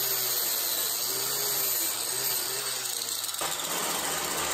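Electric angle grinder with a wire brush wheel running against square steel tube, scrubbing off surface rust to prepare the steel for paint. Its steady motor hum sags briefly a few times as the brush is pressed on, over a loud hiss, and the hum stops abruptly about three and a half seconds in.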